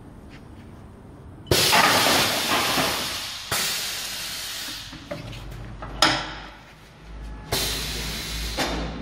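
Compressed air hissing from a plastic sheet bending machine's pneumatic valves and cylinders: four sudden bursts of air, about every two seconds, each starting sharply and fading over a second or two, with a low hum under the later ones.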